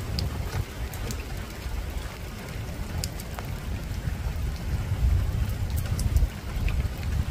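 Steady rain falling on a rooftop, with separate drops ticking sharply here and there over a constant low rumble.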